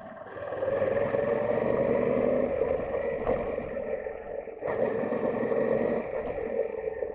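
Yamaha Ténéré 700's 689cc CP2 parallel-twin riding along a gravel track, heard muffled as a dense mix of engine and wind noise. It swells about half a second in and eases near the end, with two sharp knocks about three and five seconds in.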